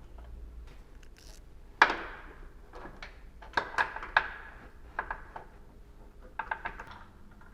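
Hand tools clanking against metal suspension parts under a car: one sharp ringing clank about two seconds in, then scattered clicks and taps.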